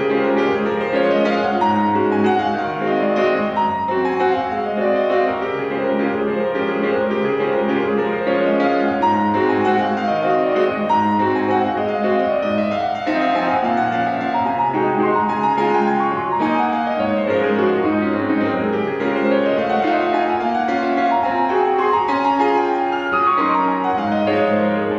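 Solo piano playing a fast classical piece, with quick runs of notes rising and falling over a steady lower accompaniment.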